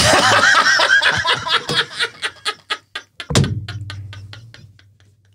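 Men laughing hard: a loud burst of laughter that breaks into short, fast pulses, picks up again about three seconds in, then dies away.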